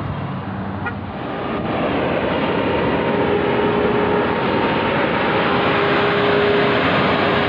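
Road traffic at an intersection, dominated by a heavy diesel semi truck hauling a loaded lowboy trailer. It grows louder about a second and a half in and carries a steady engine hum.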